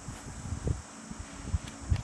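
Knife cutting through a watermelon strip on a metal tray: a few dull low thuds, about three, as the blade goes through the flesh.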